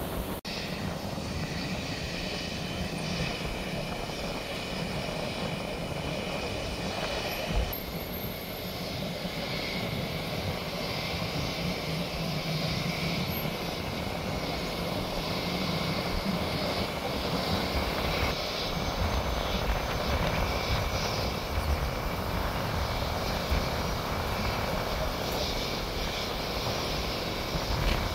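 Distant aircraft engines running steadily, a continuous drone with a high whine over it.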